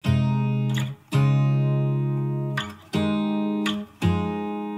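Background music: guitar chords strummed and left to ring, a new chord about every one to two seconds, each slowly fading.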